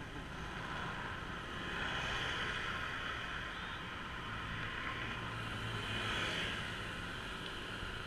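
Wind rushing over the camera microphone with road noise from a moving ride, steady with two slight swells.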